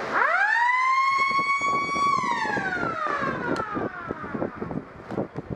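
A single siren blast: the pitch winds up quickly, holds steady for about two seconds, then slowly winds down as it coasts off, in the manner of a motor-driven siren. A few scattered clicks follow near the end.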